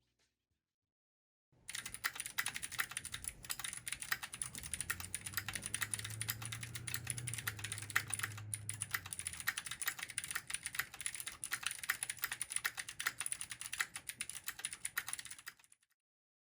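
Keychron Q1 75% aluminium mechanical keyboard in stock form being typed on fast: a dense run of key clacks that starts about a second and a half in and stops about a second before the end.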